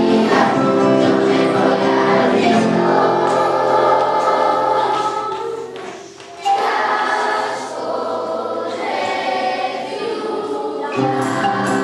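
Children's choir singing a song with acoustic guitar accompaniment. The music drops away briefly a little past the middle, then the voices come straight back in.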